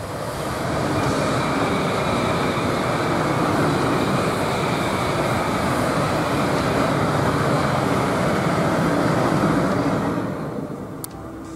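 ICE high-speed electric train passing at speed: a steady rush of wheel, rail and air noise that swells in the first second, holds loud, and dies away after about ten seconds.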